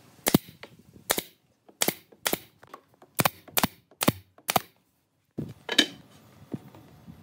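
SOYI pneumatic brad nailer firing brads into a wooden box joint: about nine sharp shots at uneven intervals of half a second to a second.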